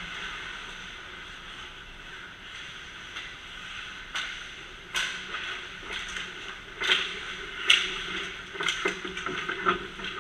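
Ice hockey play around the net: skates scraping the ice over a steady background hiss, with a series of sharp stick and puck clacks, the loudest about seven and a half seconds in.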